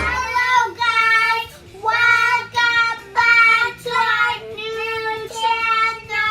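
A child singing unaccompanied: a string of held high notes in short phrases, with brief pauses between them.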